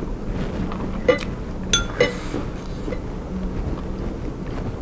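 Metal fork clinking against a small glass bowl of sambal: three sharp clinks between about one and two seconds in, the middle one ringing briefly, then a faint tap. A faint steady hum runs underneath.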